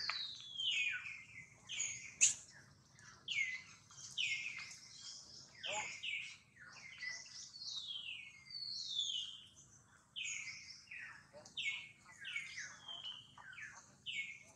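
Birds chirping: a continuous run of short, high whistled notes that each slide downward, about one or two a second, over a faint steady background hum.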